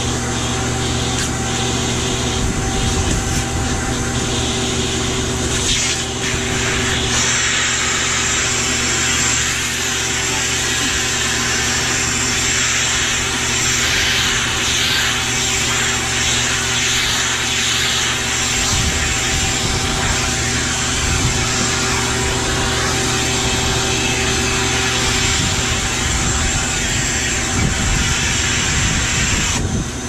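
Eureka canister vacuum cleaner running steadily while its hose nozzle is drawn over a dog's coat, a constant motor hum under a rush of air. A higher hiss of air comes in about seven seconds in and drops away near the end.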